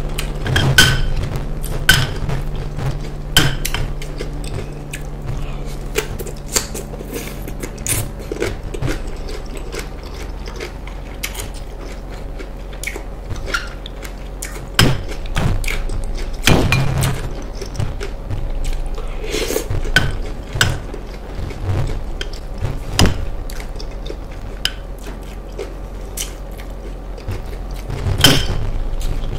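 Close-miked eating sounds: wet chewing and mouth smacks while eating fish stew and cucumber slices, with a plastic spoon clinking and scraping in a glass bowl. A steady run of short clicks, with a few louder smacks.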